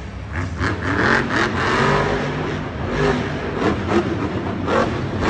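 Monster truck's supercharged V8 engine revving hard as the truck accelerates and launches off a dirt jump, its pitch rising and falling with the throttle.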